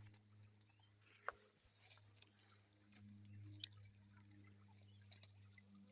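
Near silence: a faint steady low hum with a few soft, sharp clicks.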